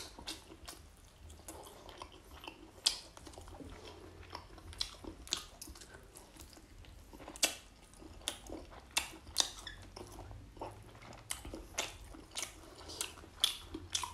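Close-up chewing of grilled crocodile meat, with many sharp, irregular crunches between the teeth.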